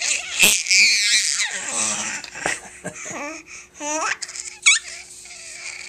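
Baby laughing and babbling, with high breathy giggles and a couple of short rising squeals.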